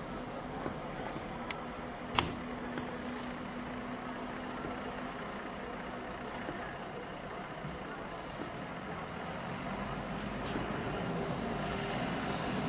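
Steady road-traffic noise with a low hum, growing louder near the end as a vehicle comes closer. One sharp click about two seconds in is the loudest moment.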